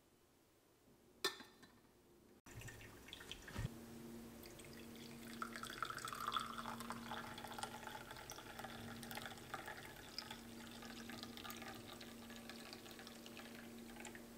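Brewed coffee poured in a thin stream from a carafe into a double-walled glass cup, a soft trickling, splashing pour. A single sharp click comes about a second in, and a steady low hum runs under the pour.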